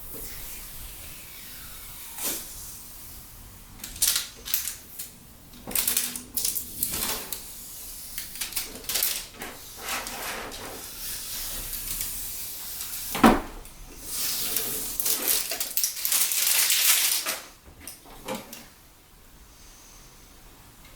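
Hands handling computer parts and their plastic packaging: scattered rustles and clicks, one sharp knock past the middle, then a few seconds of continuous rustling.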